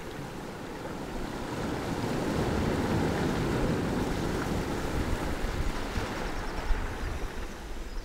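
Sea surf washing in among rocks over a pebble beach, the rush of water swelling to a peak a few seconds in and then fading as the wave drains back through the pebbles. Wind rumbles on the microphone underneath.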